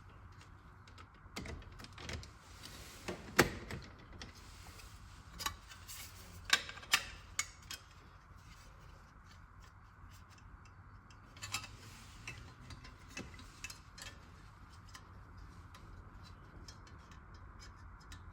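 Scattered light clicks, taps and knocks of small metal parts and hand tools being handled on a workbench, a few sharper knocks standing out, over a faint steady hum.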